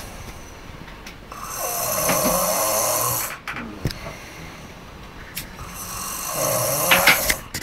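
Overweight boy snoring in his sleep: two long, loud snores about five seconds apart, with quieter breathing between them.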